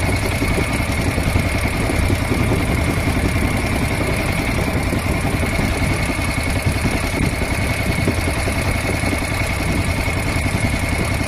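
A small boat's engine running steadily underway: a constant low rumble with a steady high whine on top.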